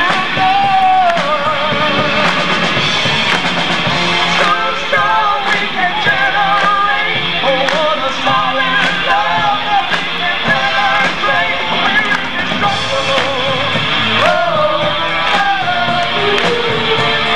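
Live pop-rock band playing, with drums, electric guitar and keyboards under several voices singing a melody.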